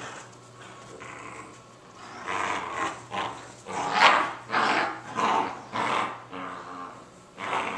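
Border Collie–Staffie cross puppies growling in play while tugging at a toy: a string of short growls that starts about two seconds in, the loudest about four seconds in.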